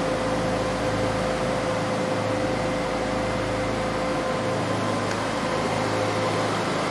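Metal 3D printer running: a steady machine hum and fan-like whir with a constant low tone and a fainter higher tone.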